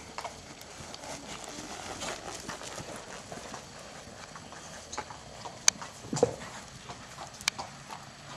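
Horse trotting on a sand arena under a rider: muffled hoofbeats in a steady rhythm, with a few sharp clicks in the second half.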